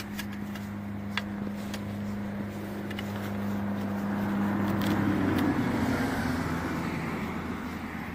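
A car on the road: a steady low engine hum, then a broader swell of engine and tyre noise that peaks about five to six seconds in and fades as it goes by. A few sharp clicks sound now and then.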